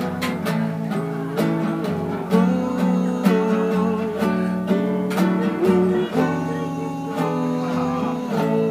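Acoustic guitar being played, plucked notes and strums, with a man's voice singing a wavering melody along with it.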